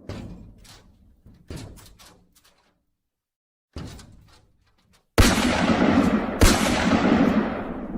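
Action sound effects: three sharp bangs with echoing tails, a short silence, then two loud sudden blasts that die away slowly.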